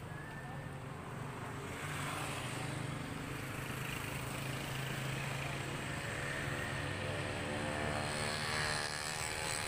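A motor vehicle's engine running steadily: a low droning hum, with a higher engine tone that becomes clearer in the second half.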